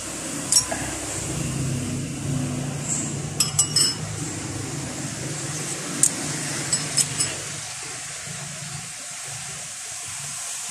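Metal spoon clinking against a soup bowl while eating: a single clink, then a quick run of three, then a few more later, over a low steady background hum.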